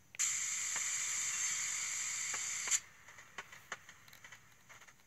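Air-hiss sound effect played by the SoundTraxx sound decoder in an Athearn Genesis HO caboose, through its small onboard speaker: a steady hiss lasting about two and a half seconds that cuts off sharply. A few faint clicks follow.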